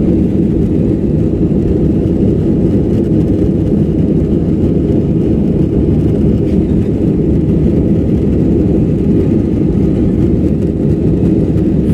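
Steady jet airliner engine and airflow roar heard inside the passenger cabin in flight shortly after takeoff, a deep, unbroken rumble.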